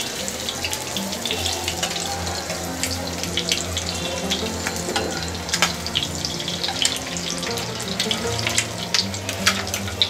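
Batter-coated boiled egg halves shallow-frying in hot oil in a nonstick pan: a steady sizzle with frequent crackling pops. Quiet background music runs underneath.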